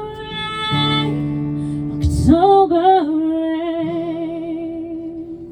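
Female singer holding the final sung note with vibrato over a sustained acoustic guitar chord, the song ending and fading out near the end.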